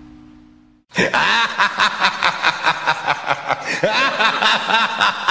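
A held electronic note fades out, and just under a second in a loud dance track cuts in. It is built on a chopped, laugh-like vocal sample repeated in rhythm, about three to four pulses a second.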